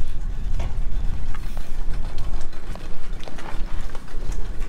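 Water taxi boat under way: a steady low engine rumble mixed with wind buffeting the microphone, with scattered short knocks.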